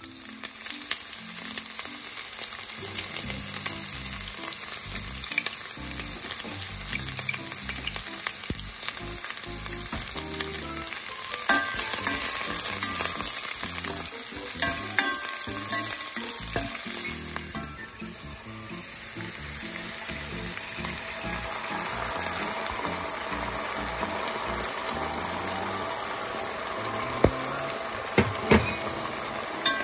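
Garlic, onion and ginger sizzling in hot oil in a pot as they are sautéed and stirred with a spatula. The sizzle drops a little over halfway through, then comes back, and a few sharp knocks come near the end.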